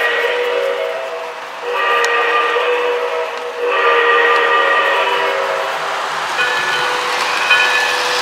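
Lionel Rio Grande model steam locomotive's sound system blowing its steam whistle, a chord of several tones, in long blasts with short breaks between them, followed by shorter, higher notes near the end.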